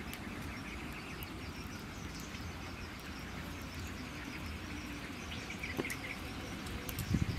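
Outdoor ambience: a steady low rumble with faint insect and bird chirps, including a short chirp about six seconds in, and a few low bumps near the end.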